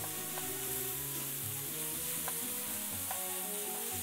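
Ground beef and chopped vegetables sizzling steadily in an electric skillet, with a few light clicks as the meat is stirred and broken up.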